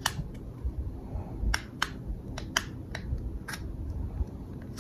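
Sharp metallic clicks and taps of an IWI Uzi pistol's parts being handled during disassembly: about seven clicks at irregular intervals.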